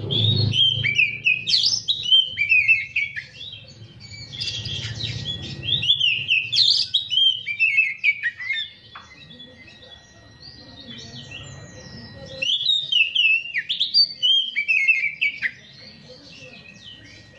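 Caged oriental magpie-robin singing: rapid strings of varied, clear whistles and chirps that swoop up and down. It sings in three bursts, with short pauses about four seconds and nine seconds in, and falls quiet about two seconds before the end.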